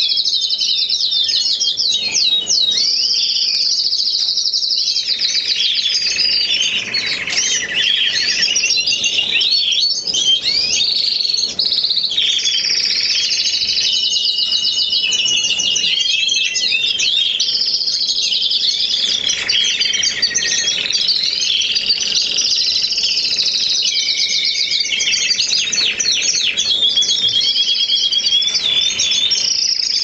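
Canaries singing: long, rapid trills and chirps, one run of repeated notes following another without a break.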